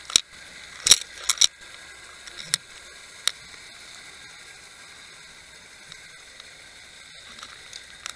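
Underwater audio from a camera on a fluke fishing rig moving over a sand bottom: a steady hiss, with a cluster of sharp clicks and knocks in the first second and a half and two more a little later.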